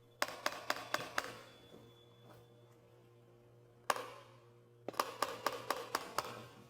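Two quick runs of sharp taps, five or six in each at about four a second, with a single tap between the runs. A faint steady hum and light music sit underneath.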